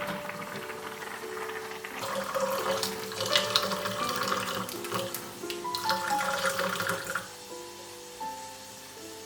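Water running from a tap for a few seconds, starting about two seconds in and stopping near the seven-second mark, over gentle background music of a stepping melody.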